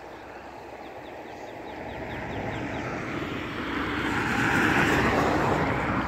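A vehicle's noise approaching and growing steadily louder, with no speech over it, peaking near the end.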